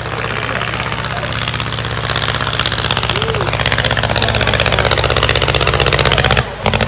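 Engine of a 1910 Hanriot monoplane running hard with a rapid, even beat as it flies low past, growing louder, then dropping out briefly near the end.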